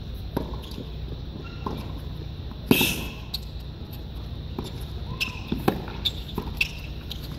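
Tennis ball hit back and forth with rackets and bouncing on a hard court during a rally. It makes a string of sharp pops a second or so apart, the loudest about three seconds in, over a steady low background noise.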